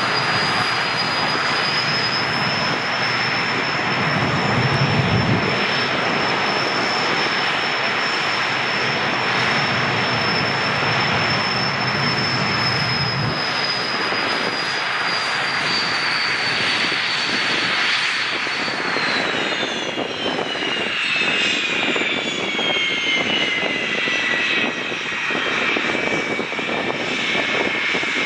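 Cessna 525 CitationJet's twin Williams FJ44 turbofans in a ground engine run: a loud jet roar with a steady high whine, and a low rumble that stops about halfway through. About two-thirds of the way in, the whine falls steadily in pitch as the engines spool down.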